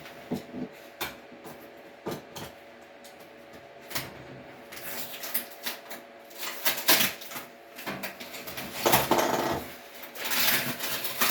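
Handling of dryer vent hose parts: scattered clicks, light knocks and rustling, busier in the second half, over a faint steady hum.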